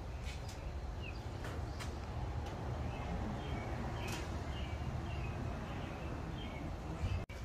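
Outdoor ambience: a low steady rumble with small birds chirping now and then and a few faint clicks. The sound drops out for an instant near the end.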